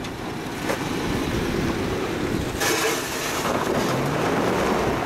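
Off-road 4x4 truck's engine running hard under load as it climbs a rutted trail obstacle, getting louder about a second in and rising in pitch near the end.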